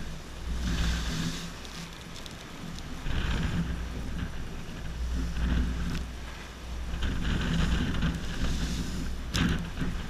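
Waves breaking and washing over shoreline rocks in repeated surges, with wind buffeting the microphone as a steady low rumble. A single short sharp click sounds about nine seconds in.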